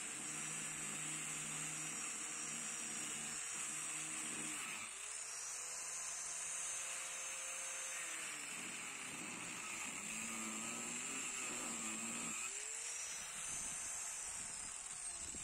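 Angle grinder with a saw-chain carving disc cutting into a log of firewood. The motor whine sags in pitch under load and picks back up about three times as the disc bites and eases off.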